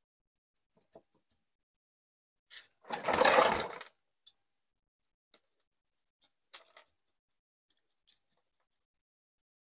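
Soil being worked into a bonsai pot: scattered light clicks and scrapes, with one louder rush of soil lasting about a second, about three seconds in.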